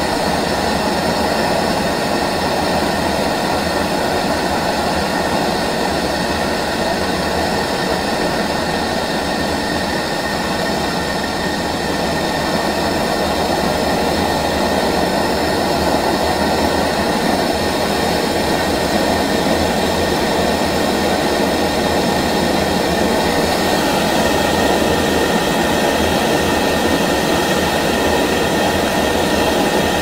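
MAPP gas plumbing torch burning with a steady, continuous flame noise, heating a hardened drill rod in a vise toward red hot for bending. It grows a little stronger about three quarters of the way through.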